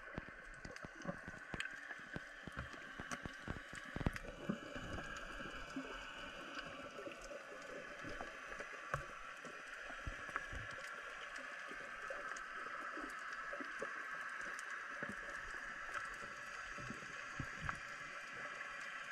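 Underwater sound picked up by a freediver's GoPro: a steady water rush with many small clicks, and low knocks that are most frequent in the first few seconds.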